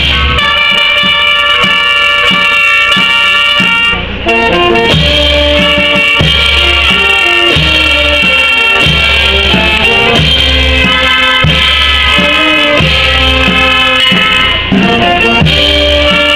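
Instrumental music: a sustained melody over a steady low drum beat, with a brief drop about four seconds in and another near the end.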